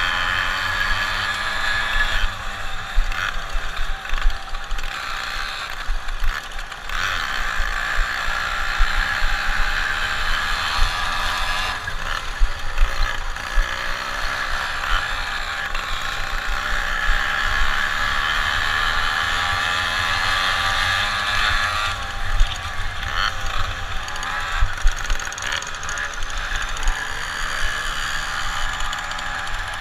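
Onboard sound of a racing moped's small engine running hard, its pitch rising and falling with the throttle. The frame rattles over the rough dirt track and wind buffets the microphone.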